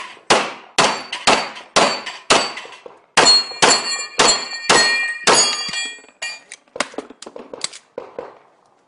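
Rapid pistol fire from an STI 2011, about a dozen shots roughly half a second apart. From about three seconds in, each shot is followed by the ringing clang of steel plates on a Texas star target being hit. Lighter clicks and clanks follow after about six seconds.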